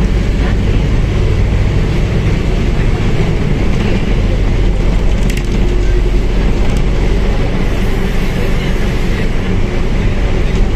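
Mercedes-Benz OF1721L bus's diesel engine running with a steady low drone, with a few light clicks partway through.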